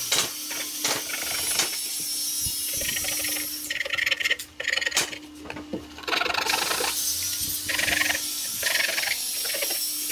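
Makita oscillating multi-tool running with a steady buzz, its blade rasping as it cuts into a veneered wooden panel, the cutting noise coming and going in stretches.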